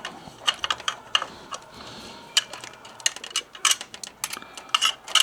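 Irregular light clicks and taps of small hard parts being handled and fitted, about fifteen in a few seconds.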